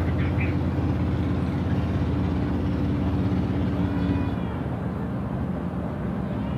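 A steady, low, humming engine drone, like a motor vehicle running nearby. It eases a little about two-thirds of the way in.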